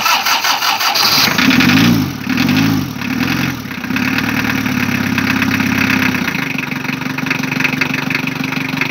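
Toyota 3L inline-four diesel engine cranked on the starter and firing up. The revs rise and fall three times as the accelerator is blipped, hold higher for a couple of seconds, then drop to a steady idle about six seconds in.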